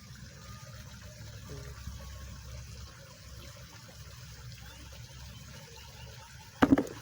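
Small river flowing steadily, a low rushing and trickling. Near the end comes a sudden loud knock.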